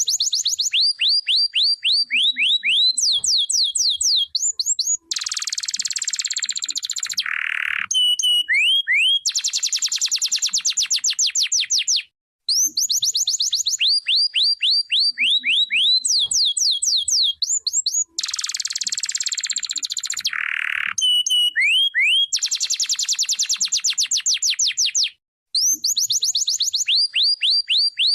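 Domestic canary singing: long runs of fast rising chirped trills alternating with dense buzzy rolls. The song breaks off briefly about twelve seconds in and again near the end, and the same sequence of phrases comes round twice.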